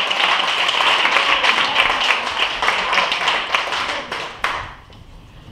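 Audience applauding with dense clapping, which fades out about four and a half seconds in.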